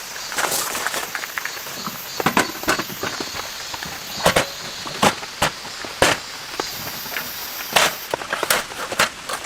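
Steady rain hiss with irregular sharp knocks and clicks, about ten in all, spread unevenly across the stretch.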